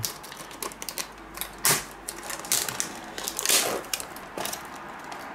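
Irregular clicking and rustling of cardboard packaging and plastic wrap as a boxed, still-wrapped PC power supply is worked out of its box by hand, with two louder rustles a little under two seconds in and about three and a half seconds in.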